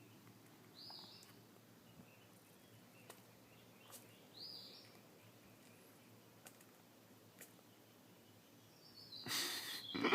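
Two short, high, falling chirps a few seconds apart over faint background. About nine seconds in, a baby fox sneezes: a sudden, louder noisy burst, caused by milk in his nose.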